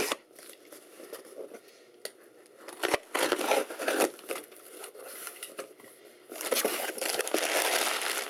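Packing material crinkling and rustling as a shipping box is dug through and unpacked. There are scattered clicks and handling knocks, louder crinkling bursts about three to four seconds in, and steady crinkling from about six seconds in.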